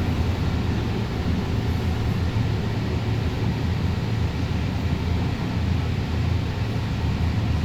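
Alstom Citadis Spirit light-rail car running between stations, heard from inside the car: a steady low rumble of wheels on rail and traction equipment.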